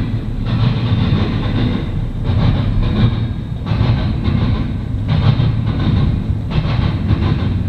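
Norfolk Southern double-stack intermodal train rolling past close by: a steady low rumble of steel wheels on rail, with a rush of clatter and rattle swelling about every second and a half as the well cars' wheel trucks go by.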